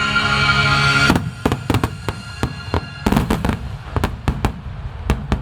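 Aerial fireworks exploding in a rapid, irregular string of sharp bangs and crackles, with thicker clusters near the middle. Music accompanying the display holds a chord and ends about a second in, just as the bangs begin.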